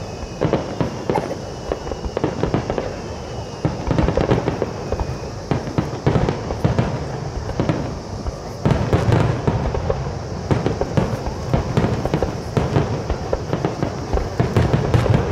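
Star mine fireworks barrage: aerial shells launching and bursting in rapid succession, a continuous stream of overlapping bangs and crackle that grows louder about nine seconds in.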